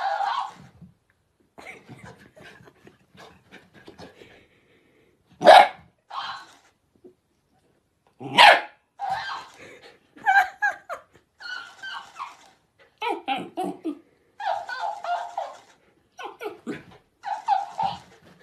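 A dog barking in short bursts, answered each time by a talking hamster plush toy that plays the barks back in a higher, squeaky voice. The loudest, sharpest barks come about five and eight seconds in.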